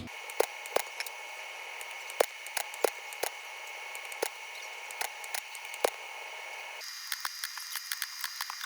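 A welding machine fusing a spring-hinge part onto an eyeglass frame part, firing pulse after pulse: sharp clicks at uneven intervals, about two a second, over the machine's steady hiss and high whine. The whine shifts higher about seven seconds in.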